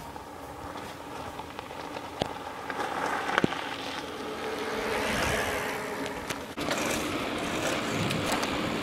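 Mountain bike tyres crunching over loose gravel as the rider comes closer, growing louder into a skid around the middle, with a couple of sharp clicks before it. The sound breaks off abruptly near the end and a steadier rushing noise takes over.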